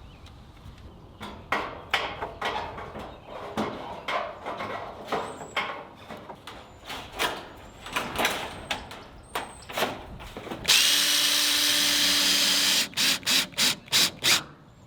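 Sharp clicks and knocks of metal siding panels being handled and fitted, then a cordless drill running steadily for about two seconds driving a screw into the siding, followed by a quick run of clicks.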